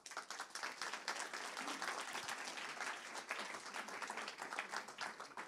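Audience applauding with many hands clapping together; the applause dies away near the end.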